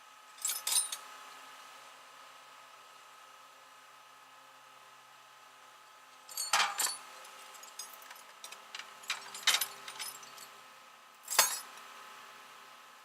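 Metal clinking and clattering as tools are handled, in short groups: a couple near the start, a cluster a little past the middle, and one sharp clank near the end, over a faint steady hum.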